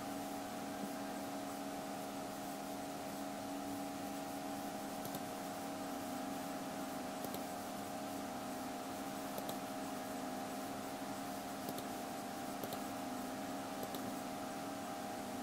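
Steady hum and hiss from computer or recording equipment, with a few faint computer-mouse clicks scattered through.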